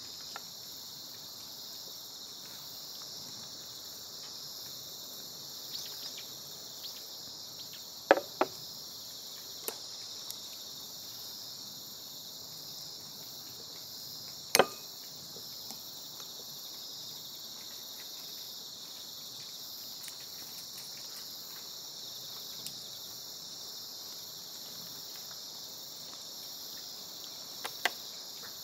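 Steady high chirring of an evening insect chorus, crickets among them. Over it come a few sharp taps of chopsticks on a glass bowl: a double tap about eight seconds in, the loudest about fifteen seconds in, and another near the end.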